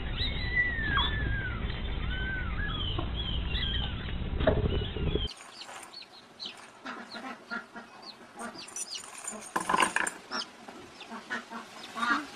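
Young birds peeping in a series of short, arched, high calls over a low hum. About five seconds in the sound cuts to a quieter scene of scattered clicks and rustles with occasional calls.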